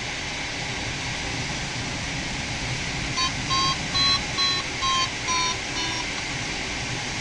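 Steady rush of airflow in a PW-6U glider's cockpit. About three seconds in, an electronic audio variometer beeps seven times, a little more than two beeps a second; these intermittent beeps are the signal that the glider is climbing in lift.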